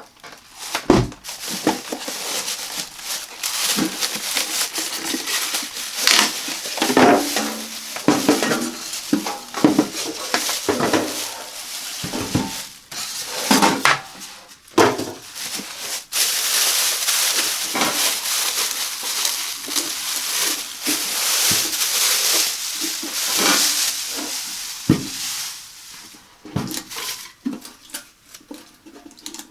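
Unboxing of a countertop toaster oven: packaging rustling and crinkling, broken by repeated knocks and clinks as the box contents are handled. About halfway through comes a longer stretch of steady crinkling.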